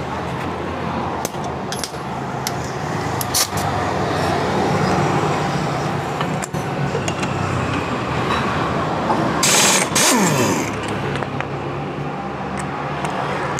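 Steady motor-vehicle engine hum with scattered sharp metal clicks of hand tools on scooter parts. About nine and a half seconds in comes a brief hiss, the loudest moment, followed by a falling engine note.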